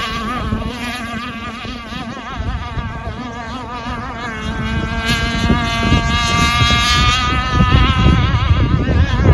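Enforcer Stingray RC hydroplane's motor running flat out as the boat races across the water, a high whine that wavers in pitch. It fades just after the boat passes and grows louder again in the second half.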